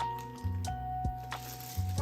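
Background music: held melodic notes changing every half second or so over a low bass line, with a few light clicks.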